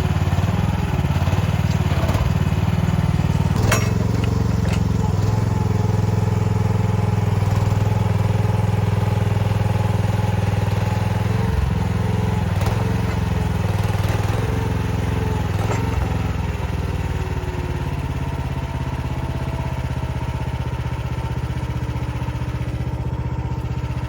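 Chinese mini excavator's engine running steadily under load as the machine tracks up a slope, with a few sharp clanks and some whining from the tracks or hydraulics. It eases a little in the last few seconds.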